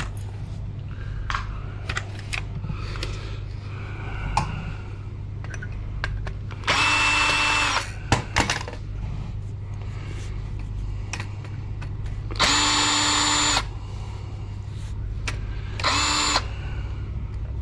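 Cordless drill-driver spinning in three short bursts, each about a second long and the last one shorter, driving out small screws. Small clicks of handling and parts can be heard between the bursts.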